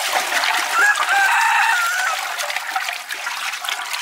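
A rooster crows once, starting about a second in, over the continuous swish of water being stirred in a large metal pot.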